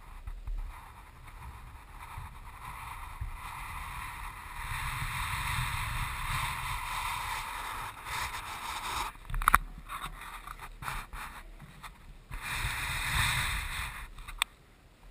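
Rumbling, rustling handling noise from an action camera that is picked up, moved and set back down on a wooden floor, with a few sharp knocks, the loudest about nine seconds in.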